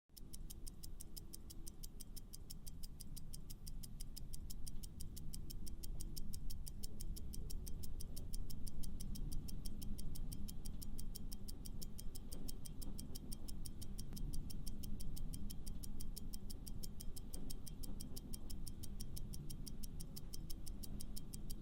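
Fast, even clock-style ticking of a quiz countdown timer over quiet background music.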